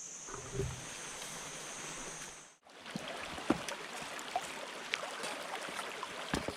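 Water running at a small waterfall, an even rushing hiss with small splashes and clicks; it breaks off for an instant about two and a half seconds in and carries on. Before the break a steady high-pitched hum runs over the water, and there is a low thump about half a second in.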